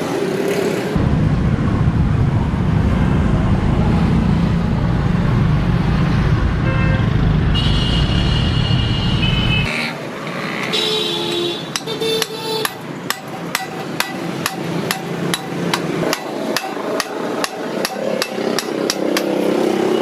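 A loud, steady low rumble for about nine seconds, then, after a short gap, steady hammering on metal at about two to three blows a second, as in work on a washing machine motor.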